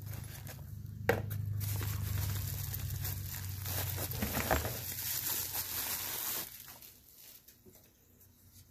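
Plastic packaging crinkling and rustling as it is handled and pulled off the contents of a zippered case, with a sharp crackle about a second in; the rustling stops about six and a half seconds in.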